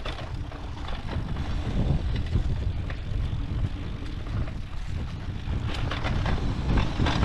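Mountain bike being ridden along a dirt trail: wind buffeting the microphone with a steady low rumble, and now and then short knocks and rattles from the bike over bumps, most of them near the end.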